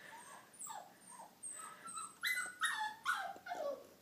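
Small dog whimpering, scared to come down the stairs: a string of short high whines, about two or three a second, each dropping in pitch, faint at first and louder from about halfway.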